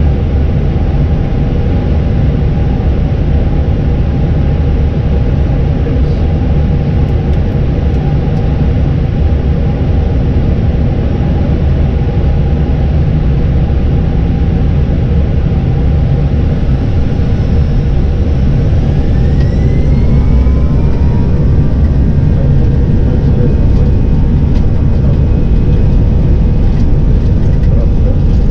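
Airbus A320 jet engines heard from the cockpit as a steady low rumble. About two-thirds of the way through a rising whine climbs and then holds steady as the engines spool up to takeoff thrust, and the sound grows a little louder.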